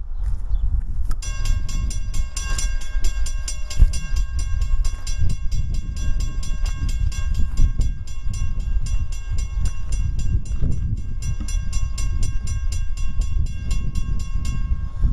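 Approaching GE B39-8E diesel locomotive rumbling low, with a bell ringing rapidly and evenly, about five strikes a second, from about a second in.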